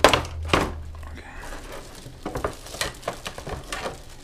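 A clear plastic blister tray being cut and pried open with a folding knife. There are two sharp snaps of the plastic near the start, then a run of small clicks and crackles as it is worked apart.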